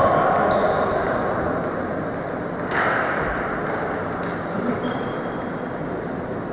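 Table tennis balls ticking on tables and bats: a scatter of light, pinging clicks, several a second at first and thinning out, with a fuller knock about three seconds in.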